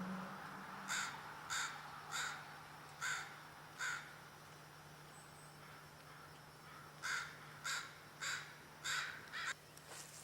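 Crows cawing: two runs of five harsh caws, each caw coming a little more than half a second after the last, over a faint steady low hum.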